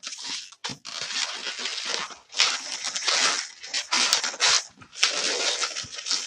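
Pink 260 latex modelling balloon rubbing and creaking against itself and the hands as it is twisted into a loop, in irregular scratchy strokes.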